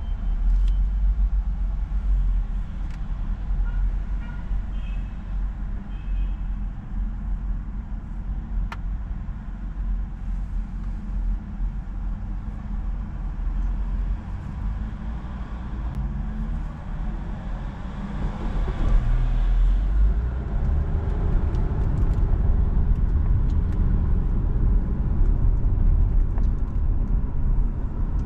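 A car driving through town: steady engine and road rumble. About two-thirds of the way in, an engine note rises and the rumble grows louder.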